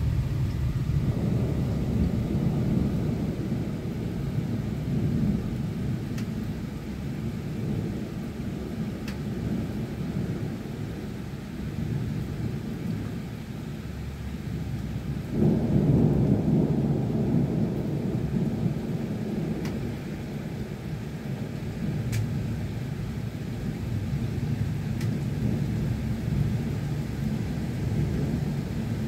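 Thunderstorm: a long, low rolling rumble of thunder over steady rain, with a sudden louder roll about halfway through that slowly dies away.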